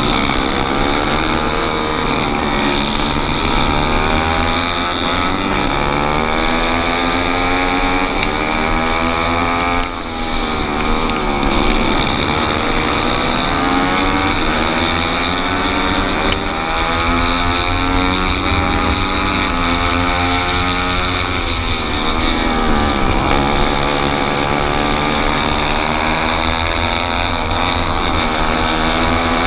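Single-cylinder four-stroke racing kart engine at full race pace, its pitch climbing as it accelerates and falling each time it slows for a corner, several times over; the loudness dips briefly about ten seconds in.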